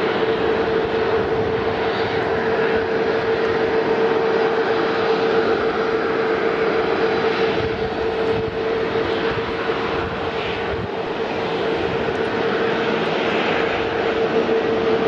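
Boeing 737-400's CFM56 turbofan engines running as the jet rolls along the runway: a steady jet rush with one steady mid-pitched tone over it.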